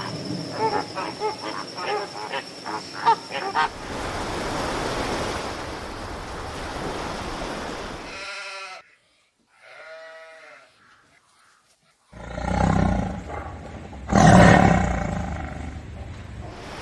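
A run of animal calls from different animals, cut one after another. First come quick repeated pitched calls, then a stretch of hiss and two short pitched calls. After a near-silent gap, louder, deeper calls run to the end.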